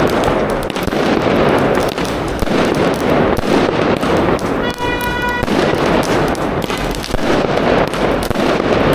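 Many fireworks and firecrackers going off at once: a dense, unbroken crackle of overlapping bangs, with a short pitched tone lasting under a second about halfway through.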